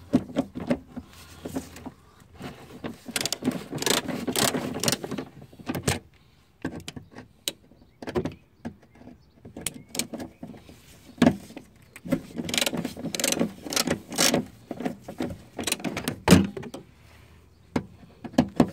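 Hand tools on the nut of a rear shock absorber mount. A socket wrench turns in bursts of rapid metallic clicking and scraping, with a few sharp metal clanks of the tools.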